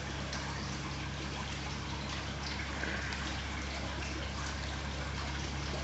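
Aquarium water trickling steadily, with a steady low hum underneath.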